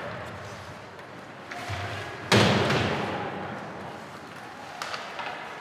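One loud bang against the ice rink's boards about two seconds in, echoing through the arena for about a second.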